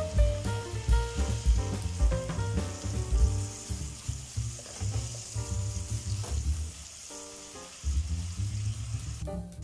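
Chopped onion, green pepper and garlic sizzling in hot oil in an aluminium pot while being stirred with a spatula, under background music with a steady bass beat.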